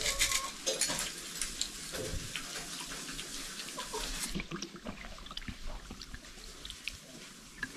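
Small clicks of fish being eaten by hand from a steel plate, then water drunk in gulps from a plastic bottle.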